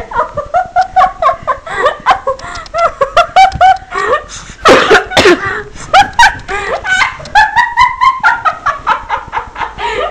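High-pitched laughter and giggling in quick, choppy bursts throughout, loudest about halfway through.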